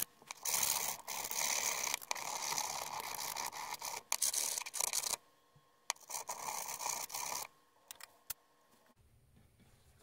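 Small hand file scraping back and forth over the cut edge of a metal ignition lock-cylinder part, deburring it: one long spell of filing of about four and a half seconds, then a shorter one, followed by a few light clicks.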